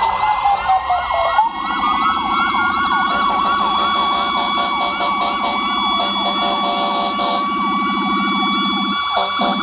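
Several emergency-vehicle sirens sounding at once as parade fire apparatus and ambulances pass. A wail winds down at the start, then a fast yelp repeats about three times a second over a steady tone, with a low rumble underneath from about a second and a half in.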